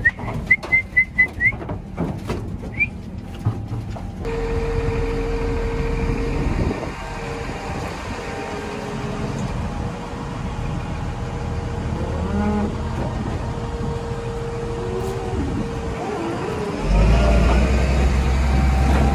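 Holstein cattle in a metal livestock trailer: a run of sharp knocks at first, then a steady hum with a few short moos, and a loud low engine rumble coming in near the end.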